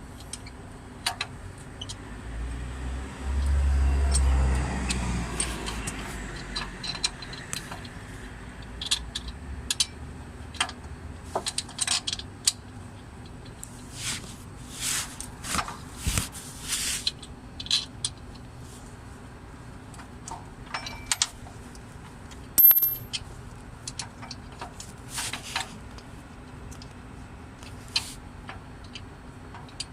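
Wrenches and metal engine parts clinking and clicking in scattered, irregular taps while a belt tensioner is being fitted, with a low rumble swelling a few seconds in and one sharp, loud click about three-quarters of the way through.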